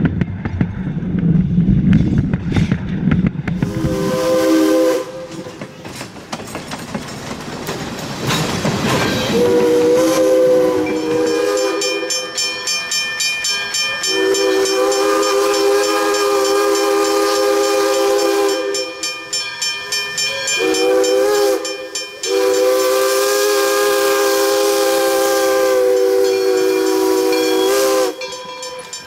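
Wheels rumbling close overhead as the train rolls across the track, then Pennsylvania Railroad 643's Lunkenheimer three-chime steam whistle. The whistle gives one short blast, then the long, long, short, long signal for a grade crossing, each blast a steady chord.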